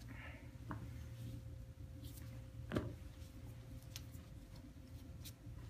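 EKG lead wire clips being unclipped from adhesive electrode tabs: a few faint clicks, with one sharper click a little under three seconds in, over a low steady hum.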